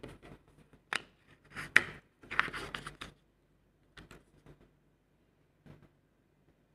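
Paper photo cards being handled: rustling and sliding against each other and across a wooden tabletop. There is a dense cluster of scrapes about one to three seconds in, then a few fainter ones.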